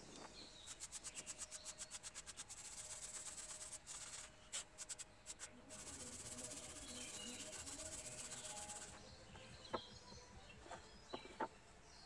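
Hand brush scrubbing a charred wooden board in quick back-and-forth strokes, about five a second at first, then a steadier scrubbing hiss, brushing out the burnt surface to raise the grain. A few sharp knocks near the end.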